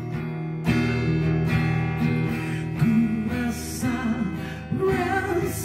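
Guitar strumming chords in an instrumental gap between the sung lines of a Malay pop ballad.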